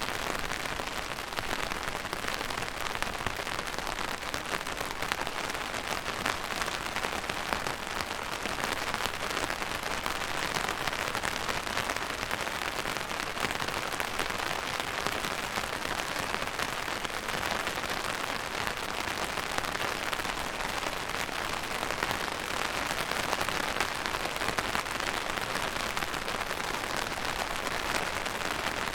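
Steady rain falling on a hard surface, a dense, even patter of many drops.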